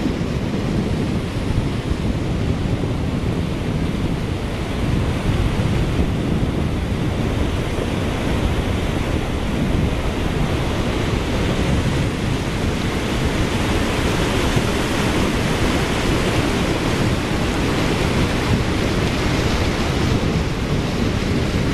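Kaieteur Falls, a 741-foot single-drop waterfall, rushing at close range: a deep, steady roar of falling water, heaviest in the low end.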